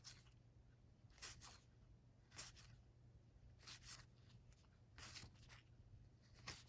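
Faint, soft swishes of game cards being slid off a deck one at a time, about six in a row, a little over a second apart.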